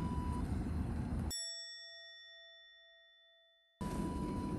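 A single bell-like ding sound effect rings out over sudden silence about a second in. Its low tone pulses slightly as it fades away over about two seconds. Light background music with a simple melody plays before it and comes back near the end.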